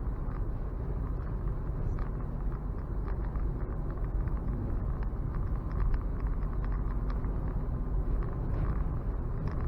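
Steady low road and tyre rumble inside a moving Nissan Leaf electric car at highway speed, with no engine note and a few faint ticks.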